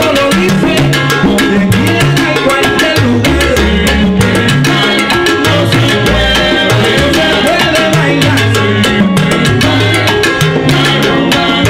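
Salsa orchestra playing live: dense Latin percussion strokes over a stepping bass line, with the full band sounding throughout.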